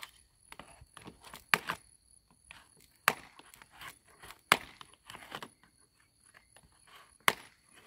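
Scissors snipping down the side of a plastic plant pot, each cut giving a sharp crack of the plastic. Four loud cracks come a second or two apart among smaller snips. This is the pot being cut open on one side to free a seedling's root ball.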